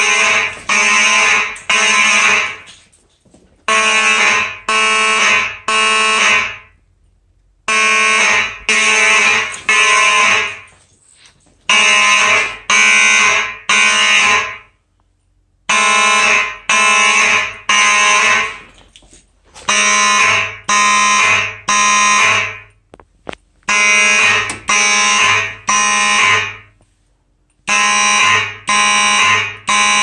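Simplex 2901 electromechanical fire alarm horns sounding in the code 3 temporal pattern: three loud blasts, a pause, then the group repeating about every four seconds. They are sounding a general alarm set off by a smoke detector.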